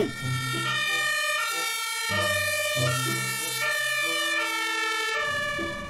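Emergency vehicle siren sounding, its tones changing pitch in steps.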